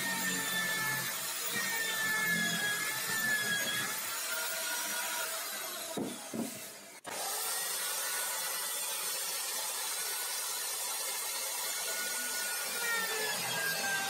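Corded electric drill in a homemade wooden drill-press stand, running and boring into plywood with a hole saw; its motor whine wavers as the cutter loads up in the wood. The sound breaks off briefly about seven seconds in, then the drill runs on.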